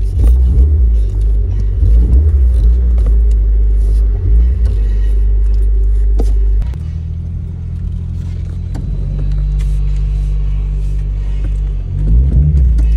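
Car running with a loud, steady low drone, which shifts abruptly to a quieter, even drone about six and a half seconds in.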